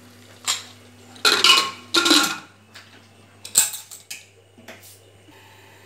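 Stovetop pressure cooker lid being put on and locked shut: a run of metal clanks and scrapes about a second in, then a single sharp metal click past halfway and a few light knocks.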